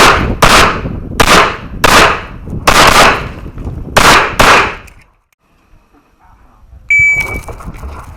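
Pistol shots fired in quick pairs, about seven in the first four and a half seconds, each with a short echo. A pause follows, then near the end a sharp sound with a brief ringing tone and more noise.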